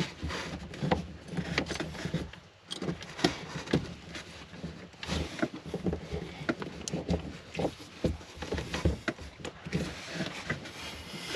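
Handling noise of a new plastic water pressure regulator being fitted into the line: irregular light clicks, taps and rustles as its fittings are worked into place and tightened.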